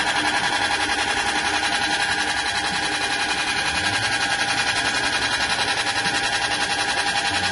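Belt-driven soybean dehulling machine running steadily as split soybeans pour through its chutes: a constant whine with a fast, even pulsing.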